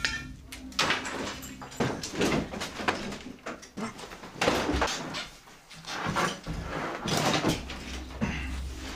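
Wooden boards and panels shifted by hand, scraping and knocking against each other and the floor in irregular bursts, with a lull about five seconds in.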